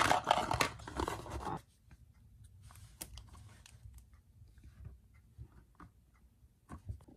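Cardboard box being handled: dense rustling and scraping of the paper packaging for about a second and a half, then only faint scattered clicks and taps.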